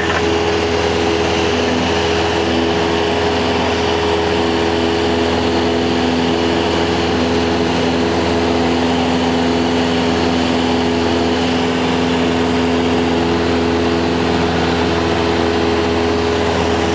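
Cessna 172's four-cylinder Lycoming piston engine and propeller droning steadily in flight, heard from inside the cabin.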